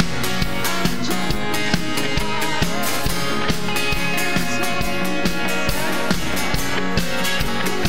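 Live worship band playing, with a drum kit keeping a steady beat under bass and acoustic guitar, and a woman singing the lead vocal.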